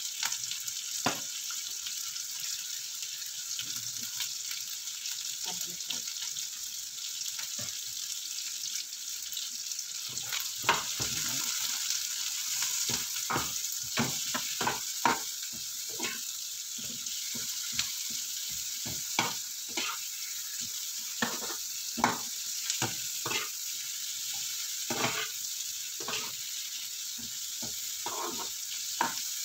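Onion rings sizzling in butter in a nonstick frying pan. From about ten seconds in, a metal utensil clinks and scrapes against the pan many times as the rings are stirred and turned.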